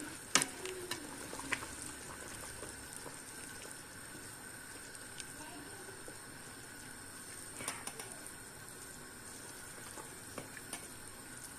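Pot of green pine cones in water at a full boil, bubbling steadily, with a few light clicks in the first couple of seconds and one more about two-thirds of the way through.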